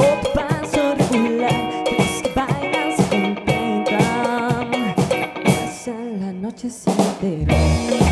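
A live pop-rock band playing: drum kit, electric guitars, bass guitar and a lead singer. About seven seconds in there is a short drum fill, and after it a heavy bass line comes in with the kick drum.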